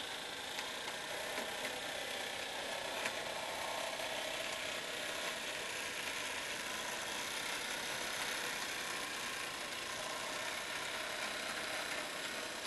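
HO-scale model diesel locomotive running along the track hauling tank wagons: a steady mechanical whir with a few faint clicks.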